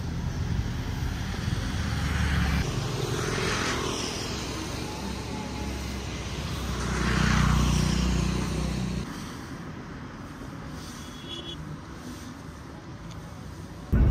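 Road traffic rumbling, with two vehicles swelling up and passing by, about three and a half and seven and a half seconds in.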